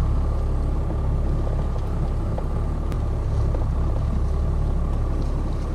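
Boat motor running steadily, a low rumble.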